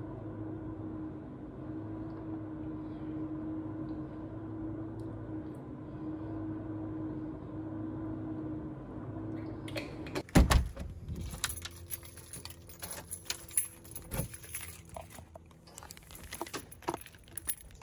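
A steady room hum with a low held tone for about ten seconds, then an abrupt change to sharp clicks, knocks and a light metallic rattle from a phone carried while walking along a concrete path, footsteps included.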